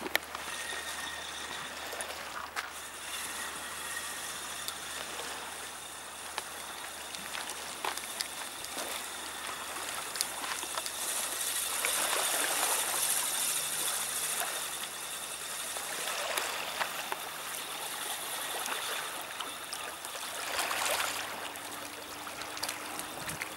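Small waves lapping on a pebble shore: a steady wash with a fine crackle of water running through stones, swelling a little about halfway through and again near the end.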